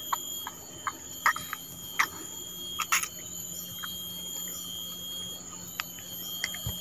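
Short, irregular clicks and taps of hands unhooking a small fish, pulling the hook and rig out of its mouth, over a steady high-pitched whine.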